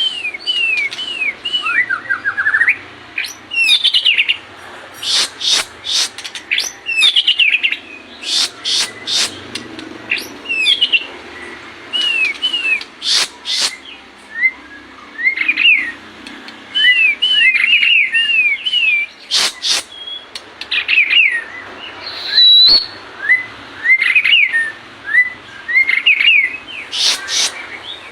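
White-rumped shama (murai batu) singing: a varied, continuous run of short whistled slurs mixed with sharp crackling notes, broken by brief pauses.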